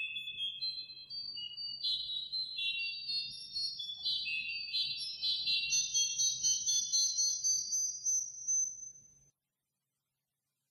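Pipe organ playing clusters of very high notes that climb step by step to a single held top note, over a faint low held note; the music stops about nine seconds in.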